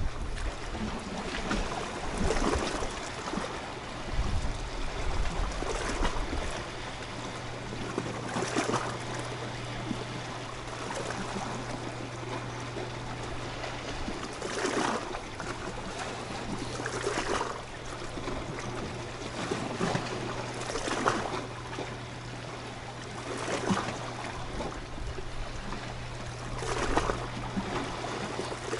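Small sea waves washing and splashing against a rocky shoreline, one wash every two to three seconds, with a steady low hum underneath.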